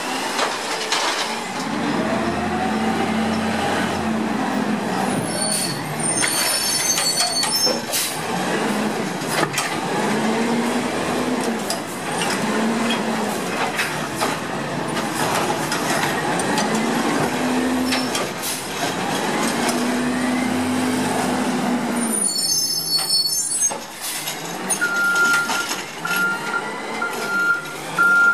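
Curbtender automated side-loader garbage truck working its hydraulic arm: the engine revs up and falls back again and again as the arm grabs, lifts and dumps plastic recycling carts. Knocks and clatter of the carts and arm come over a steady mechanical noise.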